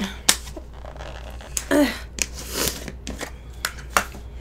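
Plastic kimchi jar being handled and its lid worked: a few sharp plastic clicks and knocks with short rustling.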